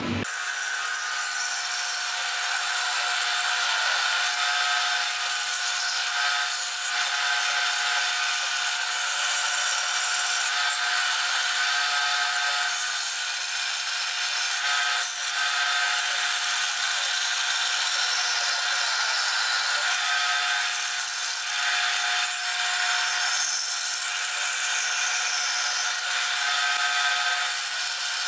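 Vertical band saw cutting aluminum plate: a steady rasp of the blade through the metal over a constant whine.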